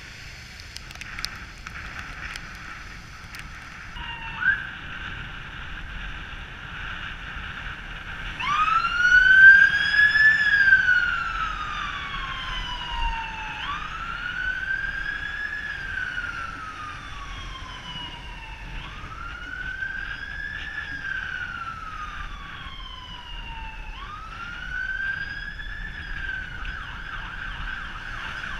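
Ambulance siren on a slow wail setting: each cycle rises quickly and falls away slowly, repeating about every five seconds, four times, starting about a third of the way in. A brief yelp comes before it, and wind and road hiss run underneath.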